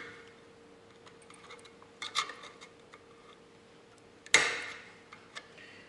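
Small metal-on-metal clicks and scrapes of a screwdriver working inside a car horn. About four seconds in comes a sharp click with a short scrape trailing off, as the screwdriver slips and gouges the horn's coil winding.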